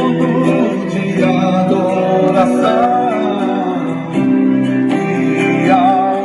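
Music: plucked and strummed acoustic guitar with a voice singing over it from about a second in.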